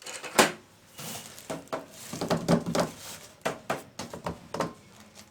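Sharp knocks, taps and scraping as a boxed PC case and its packaging are handled and pulled from the carton, with a busier run of rubbing and scraping about halfway through.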